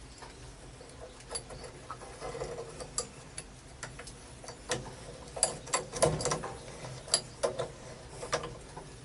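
Irregular clicks and taps of a faucet being screwed by hand onto a threaded pipe fitting, densest around the middle of the stretch.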